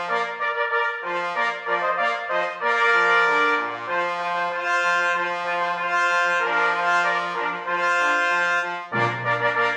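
Brass music playing long held chords that change every second or so, with a lower, fuller passage coming in about nine seconds in.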